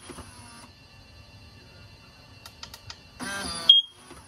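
A few light clicks, then the power frunk latch kit's electric latch motor runs for about half a second, ending in a short, sharp high-pitched chirp. The motor pulls the latch into the latched position, which the installer finds wrong for this first test.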